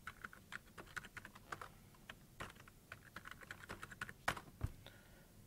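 Keys tapped on a computer keyboard as a password is typed and then typed again to confirm: light clicks in short runs, with one louder key stroke a little past four seconds in.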